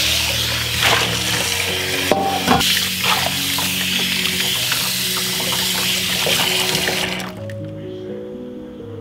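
Kitchen tap water running into a metal mesh strainer in a sink, with a few light clinks; the water shuts off abruptly about seven seconds in. Background music plays throughout.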